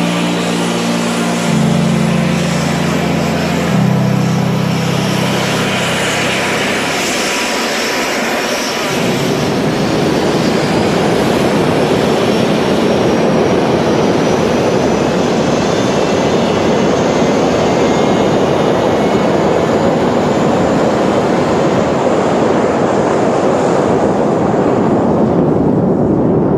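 Music chords for the first eight seconds or so, then the twin General Electric TF34 turbofans of A-10 Thunderbolt II jets running loud on the runway: a steady rush of jet noise with a thin high whine slowly rising in pitch.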